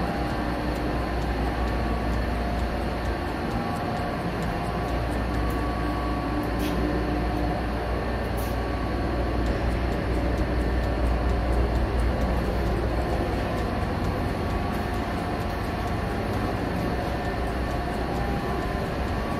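Steady background noise: a low rumble with hiss and a few faint steady hums.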